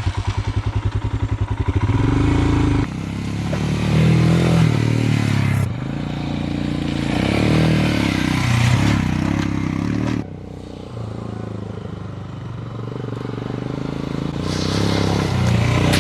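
Royal Enfield Himalayan's single-cylinder engine, first idling with an even pulsing beat, then ridden off-road with revs rising and falling. The sound changes abruptly several times.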